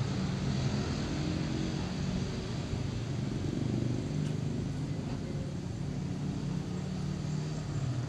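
Small motor scooter engine running steadily under way at low speed, with wind and road noise.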